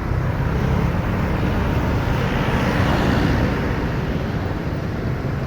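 Road traffic: a motor vehicle passing close by with a low engine rumble and tyre noise, swelling to its loudest about three seconds in and then fading.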